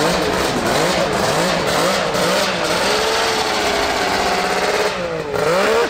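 The 2-stroke engine of a Can-Am Maverick X3 side-by-side running under load and revving up and down as it is driven. The revs sag a little about five seconds in, then climb again.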